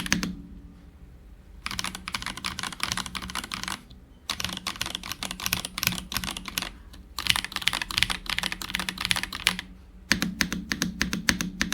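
Mechanical keyboard typing on hand-lubed Gateron Beer tactile switches in an Apollo61 Lite with a polycarbonate plate and plastic case. The keystrokes are clacky and come in fast runs of two to three seconds, broken by short pauses.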